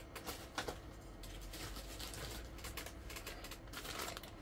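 Plastic packaging rustling, with a few light clicks about half a second in, as parcels are handled.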